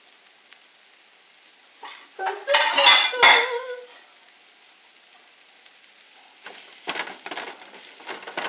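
Chopped chicken and onions frying gently in a nonstick skillet over low heat, a faint steady sizzle. A brief louder pitched sound comes about two and a half seconds in. Near the end a wooden spatula stirs and scrapes the pan.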